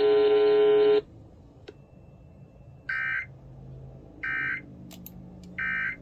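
Emergency Alert System end-of-message signal: three short bursts of warbling SAME data tones, about a second and a half apart, marking the end of the alert. A steady buzzing tone cuts off about a second in, before the bursts.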